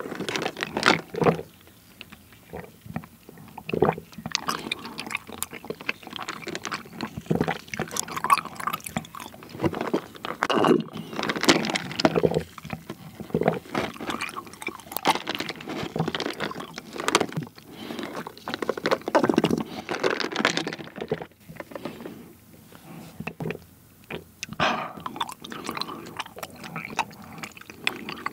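Close-up mouth sounds of brown sugar bubble tea being sucked up a wide straw: irregular slurps of milk tea and tapioca pearls, with wet chewing of the pearls between sips and a couple of short lulls in the second half.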